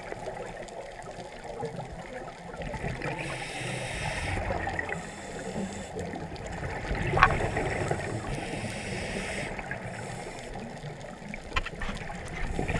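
Muffled underwater water noise, swishing and bubbling as heard through a camera's waterproof housing, with two stretches of hiss and a sharp click about seven seconds in.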